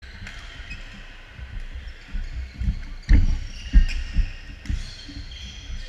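Dull low thumps close to the microphone, loudest about three seconds in, as the camera is handled and set down. Behind them, badminton play on a wooden gym floor: short shoe squeaks and faint shuttlecock hits.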